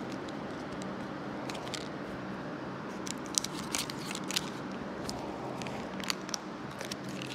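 Metallised foil sachets crinkling and crackling as they are handled, in scattered short bursts, over a steady low hum.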